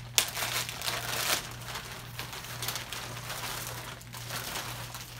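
Plastic mailing bag crinkling as it is torn open and handled, a continuous rustle with a couple of sharper crackles in the first second and a half.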